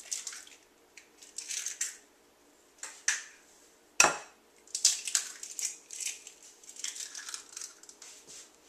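Eggs cracked on the rim of a glass mixing bowl: a single sharp knock about four seconds in, with short crackling bouts of eggshell being pulled apart and crumpled over the bowl before and after it.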